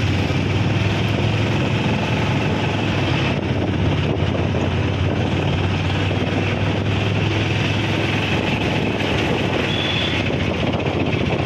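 A vehicle engine running steadily, with wind rushing over the microphone as it travels along the road.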